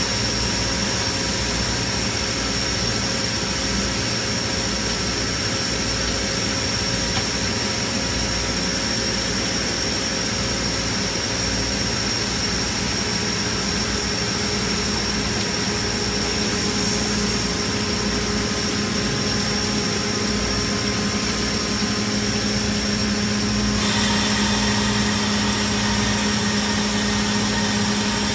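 Tsugami BS20-III Swiss-type CNC lathe running a machining cycle: a steady machine hum with a high, thin whine, over the hiss of cutting coolant spraying onto the work. About 24 seconds in the sound grows a little louder and brighter.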